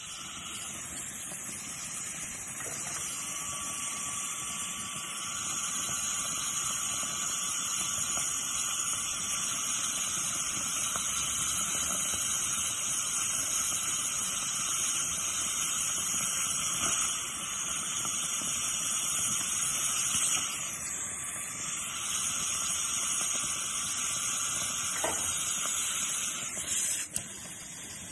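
Dental suction tip hissing steadily as it draws air and fluid from the mouth during surgery, with a faint steady tone underneath for most of the time.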